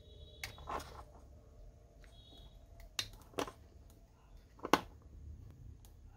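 Plastic clicks and snaps of a split-core clamp current sensor (YHDC SCT-013) being opened and latched shut by hand: several separate sharp clicks, the sharpest about three-quarters of the way through.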